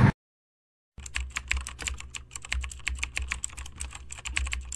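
Keyboard typing sound effect: rapid, irregular key clicks, starting about a second in after the car's road noise cuts off and a moment of dead silence.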